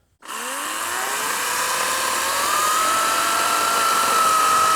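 Battery-powered chainsaw starting up and running. Its electric whine rises in pitch over the first couple of seconds, then holds steady over the hiss of the running chain.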